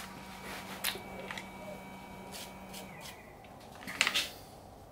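Faint steady hum of the milling machine, which stops about three seconds in, followed about a second later by a short metallic clatter of handling at the vise.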